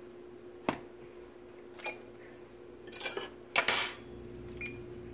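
A metal utensil clinking and scraping against a cast iron skillet: several separate clinks, the loudest about three and a half seconds in with a short ring.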